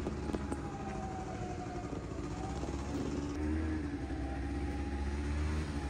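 A vehicle engine running steadily, a low hum with a slowly wavering pitch that grows a little louder about halfway through.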